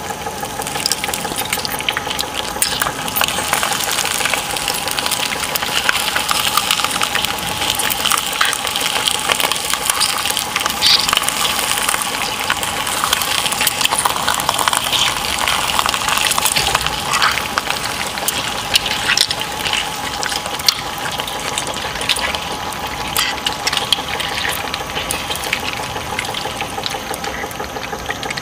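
Industrial twin-shaft shredder running with a steady motor whine while its blades crush and tear a whole octopus, with a dense crackle of clicks and crunches throughout.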